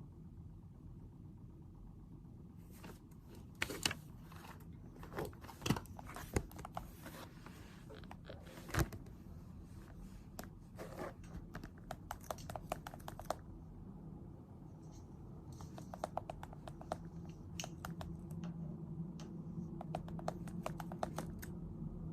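Small clicks, taps and scrapes of someone working at a desk, in two bursts: a louder, irregular run of knocks and scratches, then after a short pause a quicker patter of light clicks, over a steady low hum.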